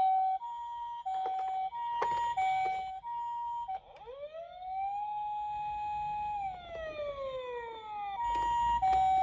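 Electronic emergency-vehicle siren of a toy minicar: a Japanese-style two-tone ambulance 'pee-poh', alternating high and low about every half second. About four seconds in it switches to a wail that rises, holds for a couple of seconds and slides down, and near the end the two-tone returns.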